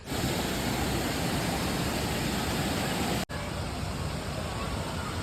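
Steady rush of a waterfall, a loud even noise with a momentary break about three seconds in.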